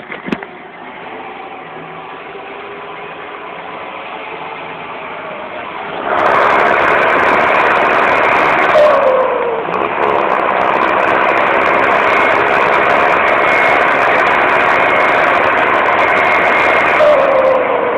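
John Deere 6430 Premium tractor's turbo diesel engine running at low revs, then opening up sharply about six seconds in and staying loud, with a thin steady turbo whistle on top. The pitch falls briefly about three seconds later and again near the end as the revs drop back.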